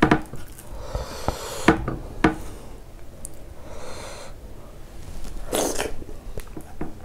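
Close-miked eating-show sounds of fingers tearing soft dhido and dipping it into curry, with a few sharp taps in the first couple of seconds and short breathy noises through the nose.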